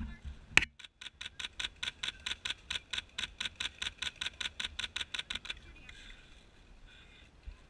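PolarStar HPA-powered airsoft rifle firing: a single sharp shot, then a long, very even full-auto burst of about seven or eight shots a second lasting some four seconds, which stops abruptly.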